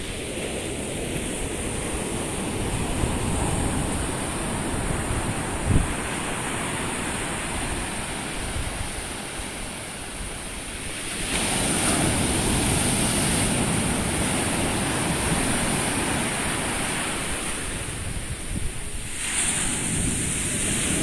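Ocean surf breaking on a sandy beach, a steady wash with a louder wave crashing about halfway through and another near the end, with wind on the microphone. A brief thump comes about six seconds in.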